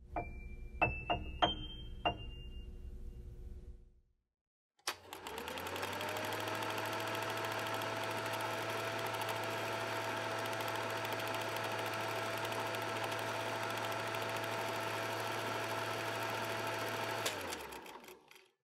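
A few sharp clicks with bright metallic pings, then a small machine running with a rapid, even clatter and a low hum. A whine rises as it starts, holds steady, and cuts off near the end.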